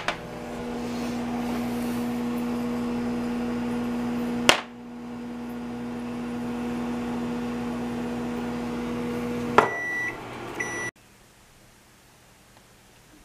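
Microwave oven running with a steady low hum, broken twice by sharp clicks, then two short high beeps about ten seconds in.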